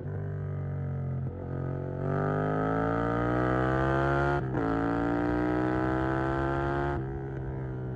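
Yamaha MT-07 parallel-twin engine through a Mivv GP Pro stainless exhaust, accelerating hard. The revs climb from about two seconds in, dip briefly at an upshift a little past halfway, climb again, then fall away as the throttle closes near the end.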